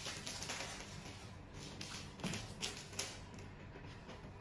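Faint crinkling of plastic shrink wrap just stripped off a cardboard product box, with a few soft taps and scuffs as the box is handled on the table.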